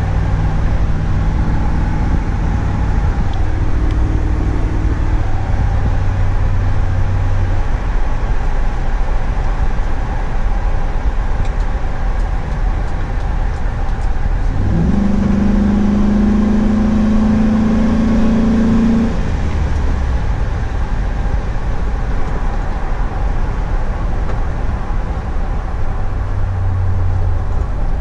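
A 2004 Chevrolet SSR's V8 running at speed, heard from inside the cabin over steady tyre and wind noise. About halfway through, the engine note jumps up and holds for about four seconds before dropping back.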